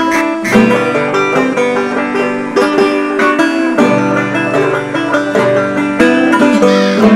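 Background music played on plucked strings.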